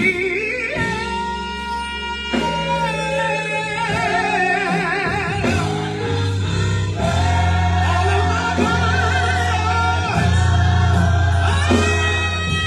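Live gospel music: a choir and band with a lead vocalist singing held, wavering notes over sustained bass and keyboard chords.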